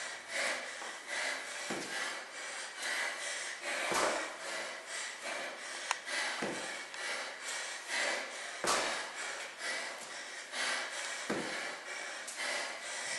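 Hard, rhythmic breathing during weighted walking lunges, with a dull thump about every two and a half seconds as each lunge step lands on the tile floor.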